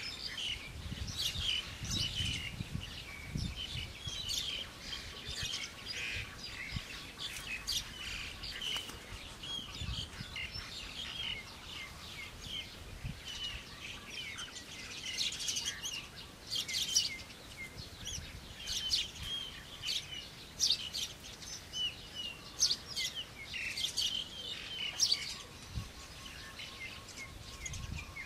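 Many small birds chirping and calling without a break, with a few dull low thumps in the first few seconds and again about ten seconds in.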